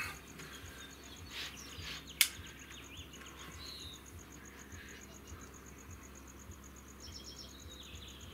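Quiet outdoor background of birds chirping and a steady high insect trill, with one sharp click about two seconds in as the air rifle's action is handled.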